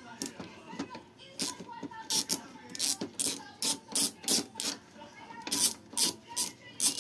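A run of sharp clicks and taps, a few at first and then about three a second, from a hand working the HP Deskjet 2510's scanner glass and its plastic frame.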